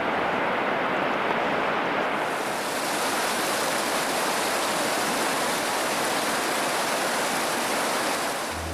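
Steady rushing roar of a large glacier-fed waterfall. About two seconds in the sound turns brighter and hissier, then holds even.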